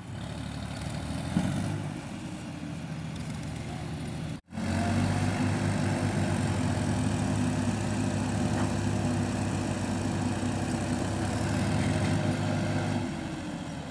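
Massey Ferguson 240 tractor's three-cylinder diesel engine running hard at steady revs, hauling a heavily loaded log trolley. The sound breaks for an instant about four seconds in, then comes back louder and eases off near the end.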